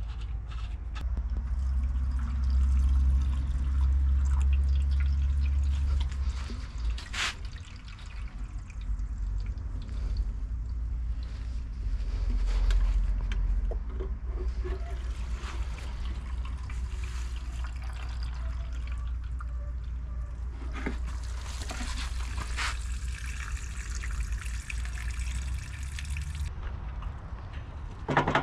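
Liquid trickling and pouring, with scattered clicks and knocks. A low rumble runs under it and is strongest in the first six seconds.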